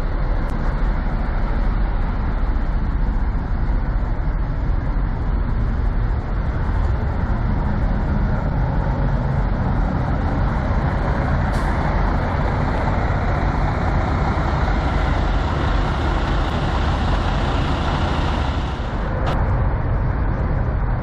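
Steady low rumble of idling semi-truck diesel engines. A hiss grows over the second half and cuts off sharply about two seconds before the end.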